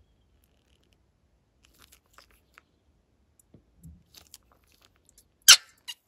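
Plastic piping bag full of slime being squeezed and worked by hand: scattered faint crackles and squelches, a dull thump near the middle, then one short, loud sharp pop about five and a half seconds in.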